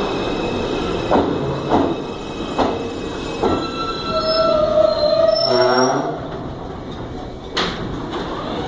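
New York City subway R160 train pulling into the station and slowing: wheels clacking over rail joints and squealing early on the rails, then the traction motors' whine falling in pitch as the train brakes, with one sharp knock near the end.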